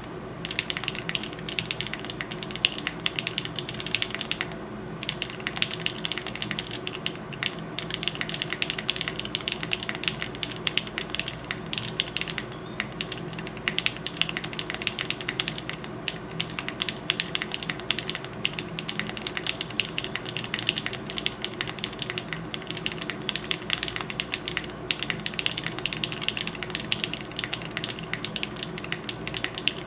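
Fast, continuous typing on a plateless 7V custom mechanical keyboard with lubed Tecsee Zaku switches and GMK keycaps: a dense stream of keystroke clicks and clacks, with a few brief pauses.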